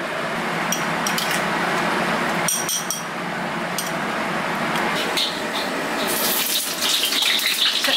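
A metal spoon clinks a few times against a small porcelain bowl while stirring a soy-sauce dressing, over a steady hiss. About six seconds in, a louder, brighter hiss sets in.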